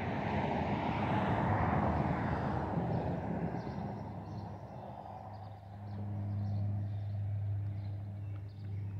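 Engine noise: a rushing sound swells and fades over the first few seconds, then a steady low engine hum sets in about halfway through.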